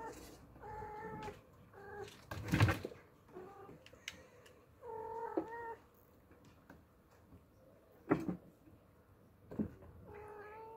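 Oriental kittens meowing repeatedly: about six short, high meows, one of them longer, about five seconds in. A few sharp knocks come in between, the loudest about two and a half seconds in.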